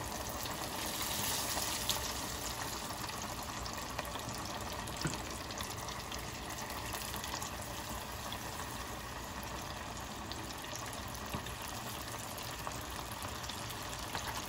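Breaded chicken pieces deep-frying in hot oil (about 350°F) in a stainless steel stock pot, just after going in: a steady, vigorous bubbling sizzle. A few faint clicks of metal tongs against the pot.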